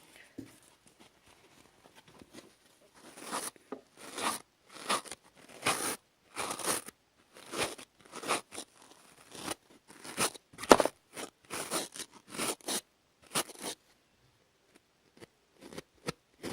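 A comb drawn through stiff hair close to the microphone, crackling and crunching ('ujijik ujijik') in a run of short strokes, about one or two a second, starting about three seconds in and stopping a few seconds before the end.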